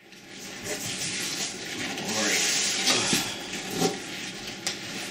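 Packing tape being cut and torn open on a large cardboard shipping box, with cardboard flaps rustling and scraping. There is a longer tearing hiss about two seconds in.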